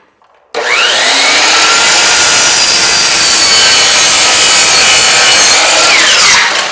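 Power miter saw cutting a 45-degree miter in a wooden trim piece: the motor starts about half a second in with a rising whine, runs steadily through the cut, and winds down with a falling whine near the end.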